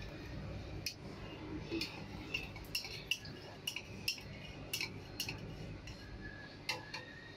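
A long spoon clicking and scraping against a small plastic cup and the rim of a blender jar as the cup's contents are scooped into the jar. There are a dozen or so sharp, irregular clicks over a low background hum.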